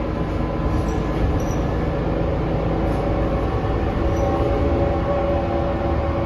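Cabin sound of a 2019 New Flyer XD40 diesel city bus under way: steady engine and road rumble with a whine over it, which rises a little in pitch from about halfway through. The uploader finds the bus's sound abnormal ("sounds INSANE") but does not say what causes it.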